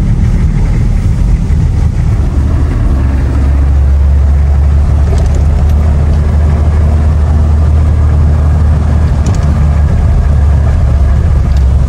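Vehicle engine and road noise heard from inside the cab while driving: a steady low drone that grows heavier about four seconds in.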